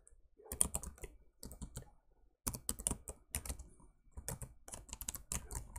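Typing on a computer keyboard: quick runs of keystrokes, with a brief pause about two seconds in.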